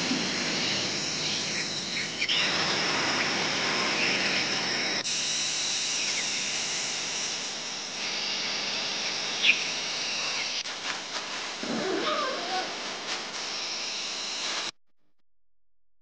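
Outdoor ambience: a steady hiss with a few brief wavering calls. It changes abruptly every few seconds and drops out to near silence about a second before the end.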